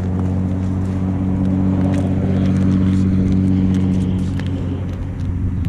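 An engine running steadily with a low, even-pitched hum that grows louder towards the middle and eases off near the end.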